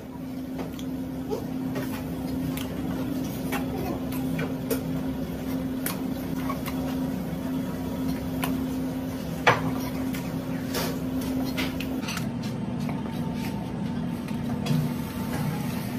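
Scattered clicks and taps of a knife against a plastic cutting board as squid is sliced into strips, with one sharper knock about halfway through, over a steady low hum.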